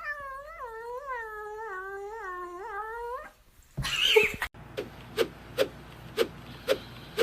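A cat's long, wavering yowl lasting about three seconds, then a brief loud cry, followed by a steady ticking about twice a second.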